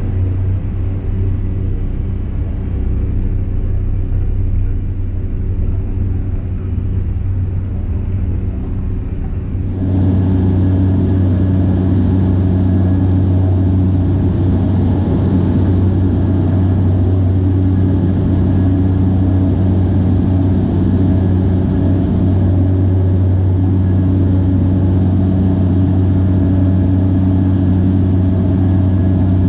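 Cessna Grand Caravan's Pratt & Whitney PT6A turboprop running at takeoff power, heard inside the cabin: a steady deep propeller drone with a thin high turbine whine that rises slightly in the first few seconds. About ten seconds in the sound changes abruptly, the whine dropping away and the drone growing louder, as the aircraft climbs out.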